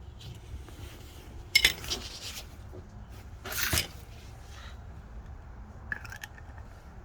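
Metal tools and brake parts being handled: a sharp clink about a second and a half in, a short scrape a couple of seconds later, and a few light clicks near the end.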